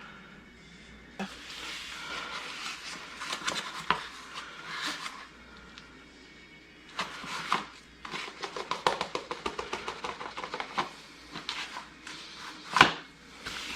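Close handling noises: rustling and scraping, with a quick run of light clicks a little past the middle and one sharp knock near the end.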